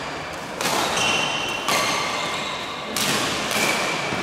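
Badminton rally: rackets striking the shuttlecock three times about a second apart, each hit a sharp smack that rings on in the large hall.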